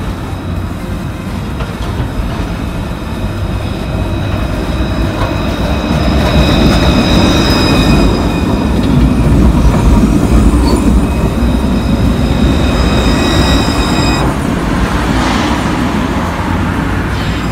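Metro Ligero light-rail tram pulling into the station and passing close by, a deep rumble of wheels on rails that grows louder through the middle. From about five seconds in a high-pitched squeal rings over it, cutting off sharply near the end.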